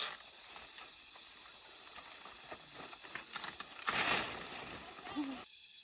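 Insects, crickets or cicadas, shrilling steadily on one high, faintly pulsing note, with faint scattered clicks and a short noisy burst about four seconds in.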